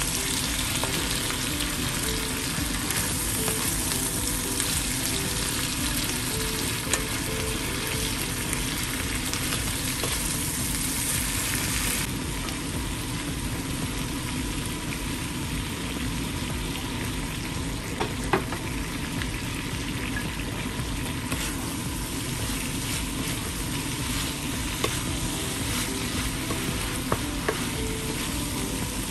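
Pork and kimchi sizzling in a hot nonstick frying pan as a wooden spatula stirs and turns them, with a few sharp taps of the spatula against the pan. The sizzle eases slightly about twelve seconds in.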